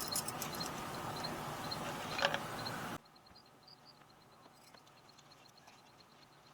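A steady rustling noise with one sharp click a little after two seconds in, which cuts off suddenly about three seconds in. Faint high chirps repeat evenly throughout and are left alone at low level after the cut.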